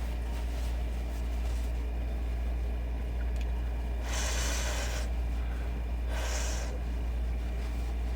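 Steady low hum throughout, with two short airy hisses, about four and six seconds in, the first lasting about a second.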